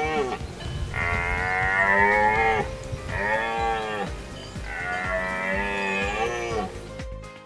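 Red deer stag roaring during the rut: three long roars in a row with short pauses between, each dropping in pitch as it ends, following the tail of a previous roar.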